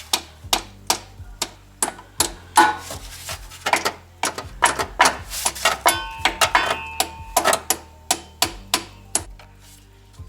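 Repeated hammer taps on steel bolts threaded partway into the Cardan shaft's flange, driving the shaft loose, about two to three sharp strikes a second, some ringing briefly.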